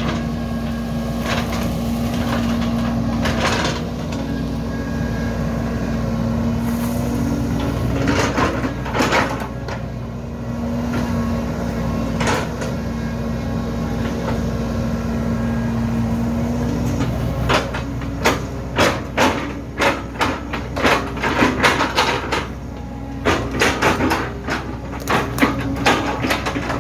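Hydraulic excavator engine running steadily. In the last third it gives way to a quick, irregular run of sharp cracks and knocks as the machine works on the tree.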